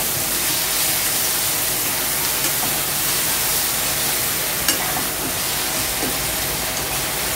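Chopped vegetables and sauces sizzling in a hot kadhai while a spatula stirs them, a steady frying hiss with a few light clicks and scrapes of the spatula against the pan.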